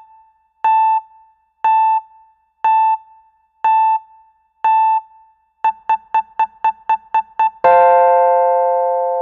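Outro jingle on an electric-piano-like keyboard: a single note repeated about once a second, then a fast run of the same note at about five a second, ending on a held chord that slowly fades.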